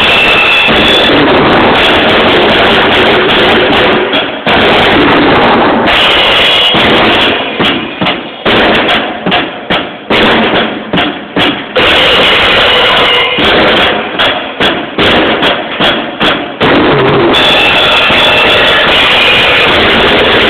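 Drum kit played hard in a metal jam, recorded so loud that it overloads and distorts. A steady pounding beat with cymbals breaks, in the middle, into separate heavy hits with short gaps, then the full beat returns.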